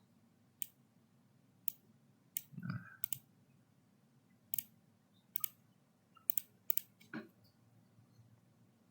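Computer mouse clicking: about nine short, sharp clicks at irregular intervals, several coming as quick double-clicks.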